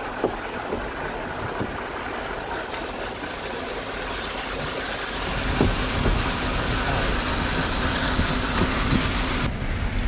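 Steady road and wind noise from a moving pickup truck. It grows louder and deeper about halfway through.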